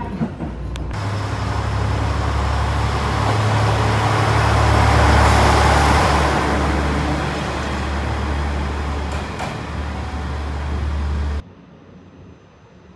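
Electric train running: a steady low hum under a rush of noise that swells to a peak about five seconds in and then eases off. The sound cuts off abruptly about a second and a half before the end, leaving only faint hiss.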